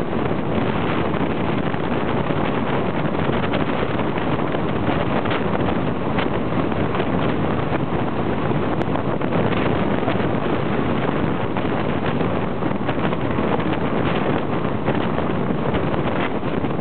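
Strong wind blowing across the microphone: a loud, steady rush.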